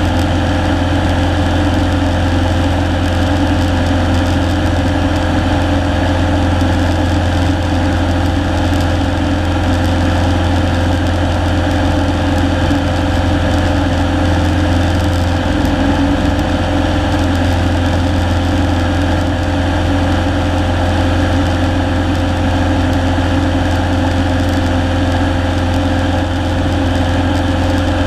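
A single-engine Cessna's piston engine and propeller running steadily in flight, a constant low drone heard from inside the cockpit.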